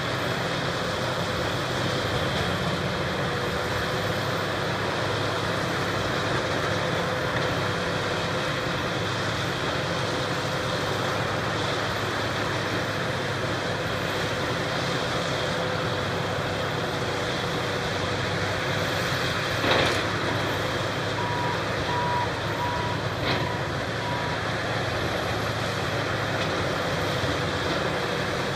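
Wood grinder and excavator running steadily while chipping storm-felled trees and limbs into mulch. There is a sharp knock about two-thirds through, then a backup alarm beeps about five times.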